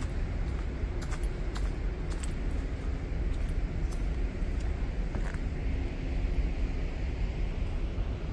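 Steady low rumble of background noise with scattered light clicks.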